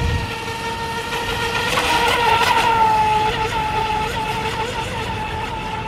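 Feilun FT011 electric RC speedboat's brushless motor whining at speed as the boat carves across the water. The high-pitched buzz swells about two seconds in, then eases off, over the hiss of its spray.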